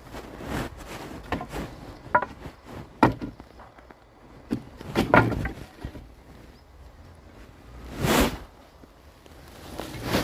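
Scattered knocks and clatter, as of boards and tools being handled, with no saw cutting. A brief rushing sound comes about eight seconds in.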